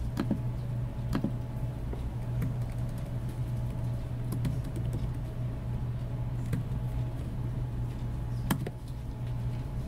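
A handful of scattered laptop keystroke clicks over a steady low electrical hum.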